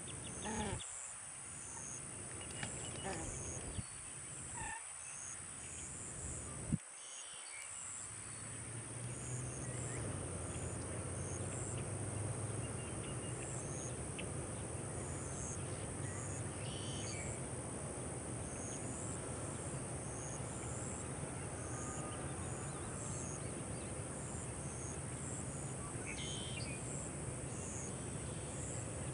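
Insects droning steadily at a high pitch, with short chirps repeating over the drone, against steady outdoor noise with a low rumble that comes up after about eight seconds. A few short bird calls and a sharp click about seven seconds in.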